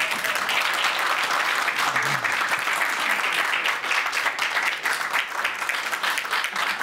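Audience applauding: many people clapping steadily at the end of a lecture.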